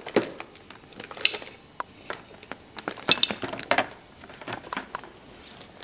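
Plastic Lego bricks clicking and clinking against each other and the plastic tub as they are handled, an irregular scatter of sharp clicks.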